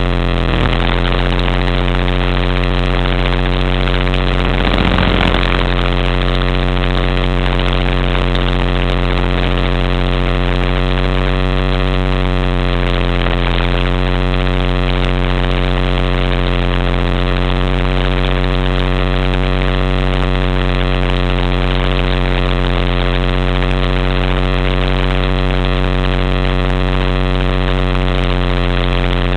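HobbyKing HK-500GT electric RC helicopter in flight, heard through a camera mounted on its frame. The motor, gears and rotor make a steady, even drone of several held tones, with a brief disturbance about five seconds in.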